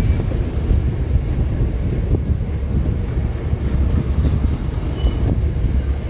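MBTA commuter rail coaches rolling past alongside a station platform, making a steady rumble. Wind is buffeting the microphone.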